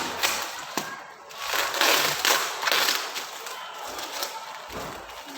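Packaging being handled and unwrapped: irregular crinkling and rustling of plastic or paper wrap, with a few small knocks.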